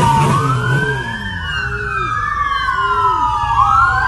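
Two police sirens wailing out of step with each other, their pitches sweeping up and down.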